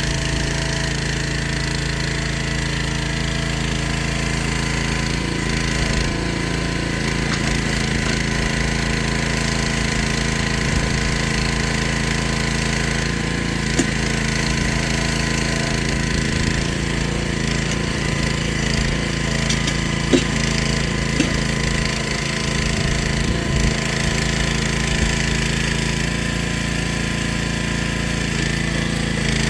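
Engine of a Jansen walking mini excavator running steadily, with a few short sharp knocks now and then.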